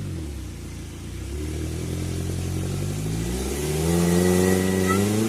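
Suzuki Jimny 4x4's engine revving: a short rev falls away at the start, then the engine climbs steadily for about two seconds and holds at high revs before dropping off at the end.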